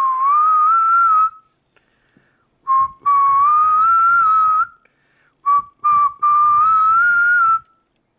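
A person whistling a slow tune in long, gently sliding notes. There are three long phrases with a few short notes between them.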